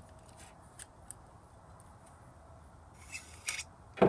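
Small-block Chevy distributor parts handled in the hands: a few light metallic clicks, a cluster of louder clinks about three seconds in, and a sharp metal knock right at the end.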